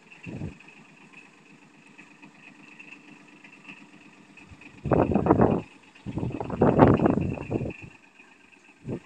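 Yanmar KE50 compact tractor's engine running under load as it climbs the loading ramps, revved up twice for a second or so about five seconds in and again for about a second and a half, with short blips near the start and end between quieter stretches.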